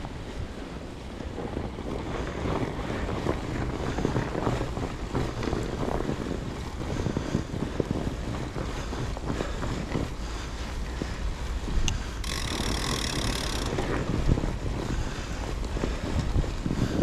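Wind buffeting an action camera's microphone on a fat bike riding a trail, with steady rumble and many small knocks and rattles from the bike. A brief hiss comes about twelve seconds in.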